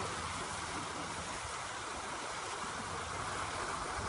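Steady splashing rush of a fountain aerator spraying water on a lake.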